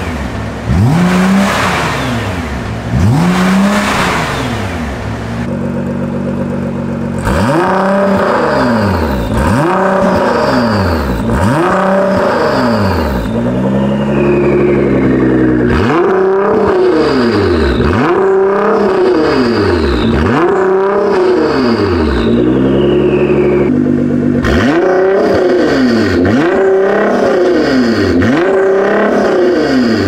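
Nissan R35 GT-R twin-turbo V6 being blipped in a string of quick free revs, each rising and falling in about a second and a half. First on the stock exhaust, then, from about seven seconds in, through a valvetronic catback with catless downpipes, its valves open in sport mode.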